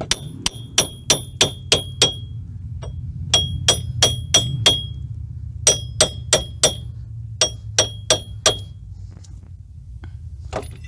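A hammer rapping on the steel wheel hub and axle end of a front hub bearing assembly to knock it loose, each strike ringing brightly. The blows come in quick runs of about three a second with short pauses between runs, and stop near the end, over a steady low hum.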